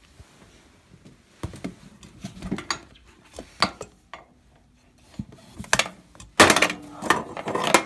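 Compression tester and hand tools being handled: scattered metal-and-plastic clinks and knocks starting about a second and a half in, with a louder run of clatter near the end.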